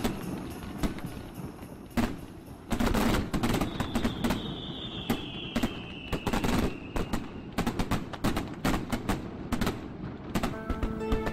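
Fireworks going off in rapid, irregular bangs and crackles, with a high whistle sliding slowly down in pitch in the middle. Music with held tones comes in near the end.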